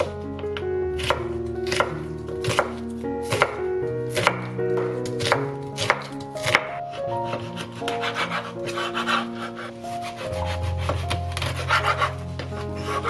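Kitchen knife chopping on a wooden cutting board, a sharp knock about every three-quarters of a second. In the second half the strokes turn into a rougher rasping as the knife saws through a semi-dried flounder, whose backbone makes it hard to cut. Background music plays throughout.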